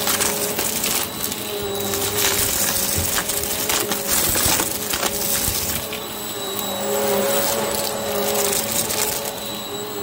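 Hoover upright vacuum cleaner running steadily, its brushroll sucking up a pile of fluffy debris mixed with foil and flakes, which crunches and crackles in many quick clicks. The motor's hum dips slightly in pitch now and then as the head is pushed into the pile.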